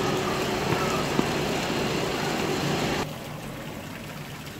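Crowd hubbub over the steady splashing of a small fountain's water jets. About three seconds in the level drops suddenly, leaving a quieter, even rush of water.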